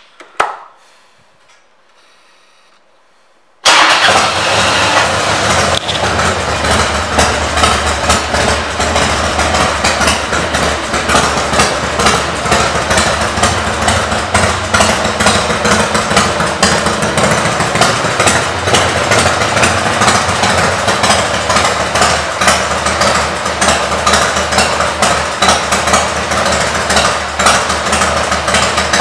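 The 2001 Harley-Davidson Dyna Wide Glide's Twin Cam 88 V-twin, fitted with Screaming Eagle pipes, comes in suddenly about three and a half seconds in and then idles steadily.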